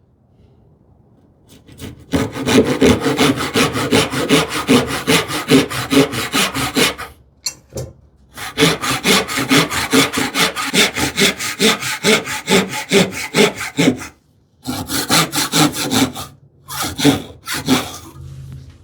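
Thin-bladed hand saw cutting a small stick of wood held in a vise, sawing down to a gauge line. Even back-and-forth strokes start about two seconds in and come in three runs, broken by short pauses around seven and fourteen seconds.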